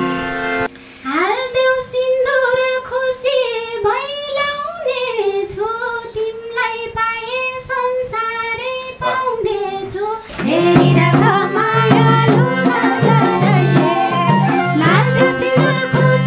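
Live Nepali dohori folk music: a high female voice sings a bending melody over light drum beats, and the fuller backing band with low harmonium comes in about ten seconds in.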